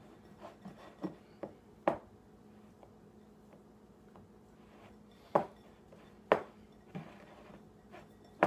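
A utensil tapping and scraping against a glass mixing bowl while stirring a thick paste: scattered sharp taps, the loudest about two seconds in and twice more around five to six seconds in.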